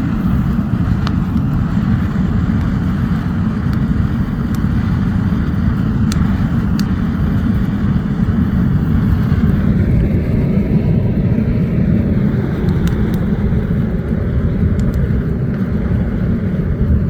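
Coal fire in a homemade furnace blown by an electric ventilator: a loud, steady rumble with a few faint crackles, as the plastic toys burn.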